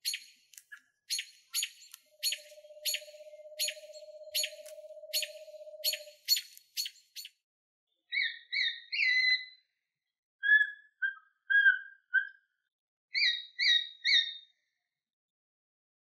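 Small owls calling in turn: a screech owl's steady, even trill lasting about four seconds over a run of sharp high clicks, then groups of short whistled notes from a Eurasian pygmy owl.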